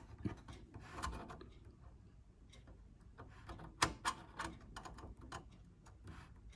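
Faint scraping and scattered light clicks of a soldering iron tip working a solder joint on a thin sheet-metal RF shield, with fingers pulling and flexing the shield as the joint melts.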